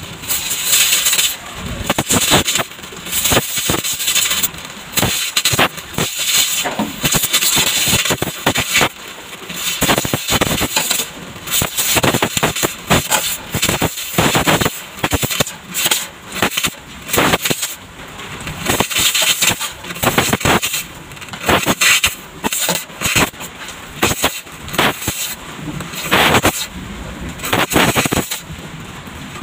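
Arc welding crackling along the seam of a new sheet-metal floor panel being welded into a car's floor pan, in short runs of a second or two that stop and start again.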